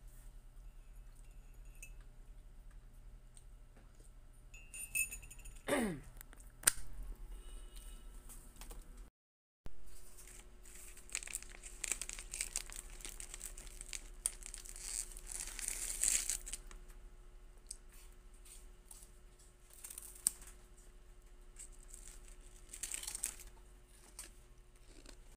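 Plastic wrapper crinkling and tearing in rustling bursts, with a brief falling squeak about six seconds in.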